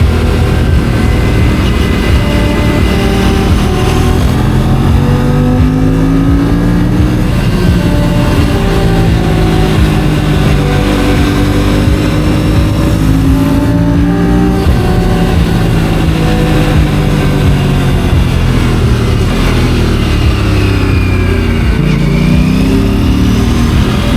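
Aprilia RS 457's parallel-twin engine accelerating under load. The pitch climbs and falls back at each gear change, sags around twenty seconds in, then climbs steeply again near the end.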